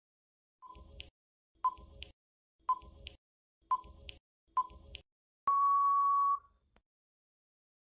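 Electronic countdown beeps: five short beeps about a second apart, then one longer beep at a slightly higher pitch, as a quiz timer runs out.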